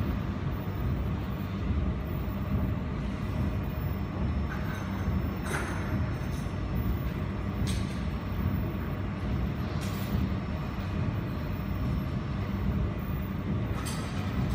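Steady low hum of a jewelry laser welding machine and its water chiller running, their cooling fans turning, with a few short sharp clicks now and then.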